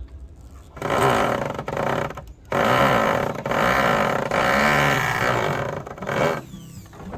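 A small engine revving in bursts, its pitch rising and falling several times, then dropping away about six seconds in.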